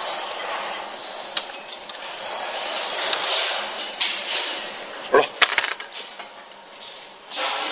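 Scattered sharp metallic clinks of a hex key and steel fittings being handled on a conveyor guide rail, over a steady background hiss; the loudest two clinks come about five seconds in.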